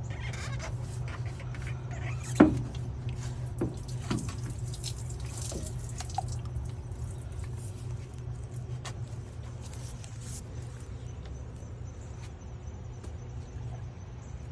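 Diesel dripping and trickling from a spin-on fuel filter being removed, with a few small metal clicks and one sharp knock about two and a half seconds in, over a steady low hum.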